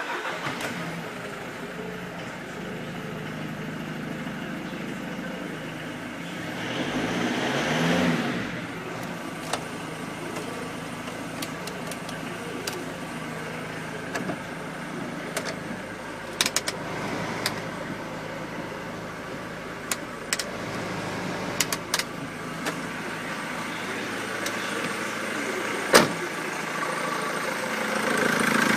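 Volkswagen T4 engine running at idle, revved up once about a quarter of the way in, then settling back to idle, with scattered sharp clicks.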